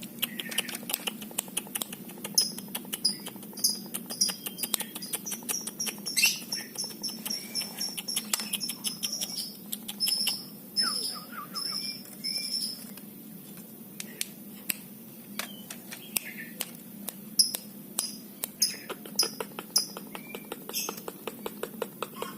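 A trucuk bulbul gives runs of short, high chirps several times a second, in three bouts, over a steady stream of sharp clicks and taps.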